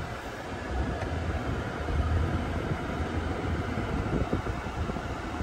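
Car interior noise while driving slowly: a low rumble of engine and tyres under a steady hiss, swelling slightly about two seconds in.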